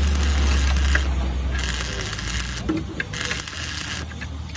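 Stick (arc) welding on a steel truck chassis rail: the arc crackles and sizzles, breaking off briefly a few times as the rod is worked. A strong low hum sits under it through the first half.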